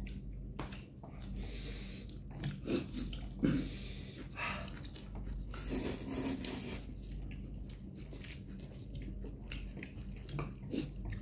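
People chewing noodles: many small wet clicks and bites with breathing, and a longer hissy rush about six seconds in, over a steady low hum.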